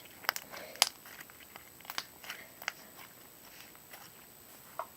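Homemade slime stretched and worked by hand, giving a handful of small, irregular sticky clicks and pops.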